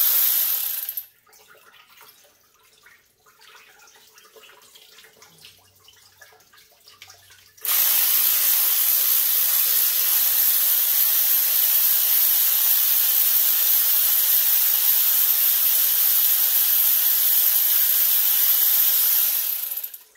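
Steady, loud high hiss of compressed air from a pneumatic tool, run while undoing water pump bolts. It stops about a second in, with faint tool ticks in the gap, then starts sharply again and runs for about twelve seconds before cutting off.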